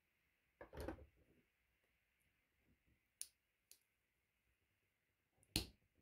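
Quiet handling sounds from a small bar clamp and a thin bent-wood eyeglass frame on a wooden form: a dull knock about a second in, two light clicks around three seconds in, and a sharper click near the end.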